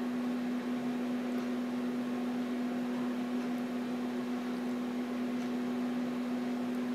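A steady low hum from a running machine over a faint hiss of potato balls frying in hot oil in a kadai, with a few light taps as a slotted spoon turns them.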